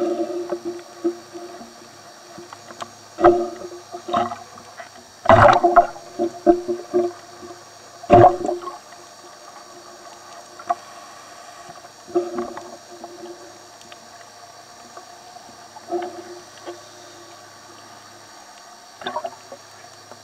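Underwater bubbling and gurgling from scuba divers close to the microphone, coming in irregular bursts over a steady low background. The loudest bursts come about five and eight seconds in.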